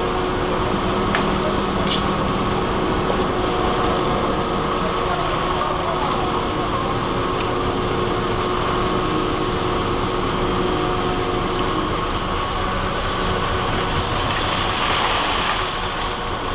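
Steady drone of idling engines and machinery, several constant hum tones over a continuous background din.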